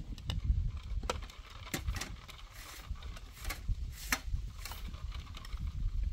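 Irregular sharp clicks and knocks, spaced unevenly, over a steady low rumble.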